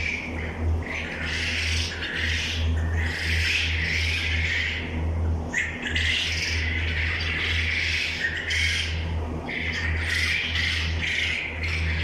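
A flock of poultry birds calling over one another, many calls overlapping with hardly a break, over a steady low hum.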